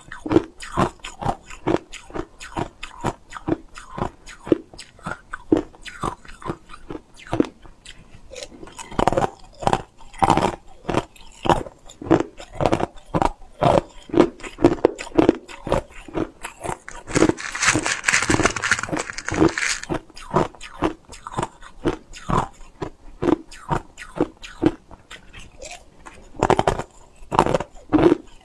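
Small clear ice cubes being bitten and crunched close to a clip-on microphone: a steady run of sharp cracks, about two or three a second. A little past the middle there is a denser, hissier stretch lasting a few seconds.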